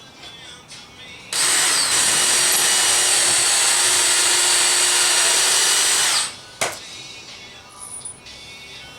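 A handheld power tool runs steadily at full speed for about five seconds, starting a little over a second in and stopping abruptly, with a high whine over its noise. A single sharp click follows soon after it stops.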